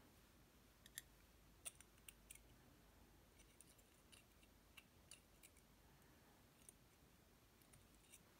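Faint, scattered light clicks of small metal parts being handled as pins are worked out of a disassembled Basi K10 lock.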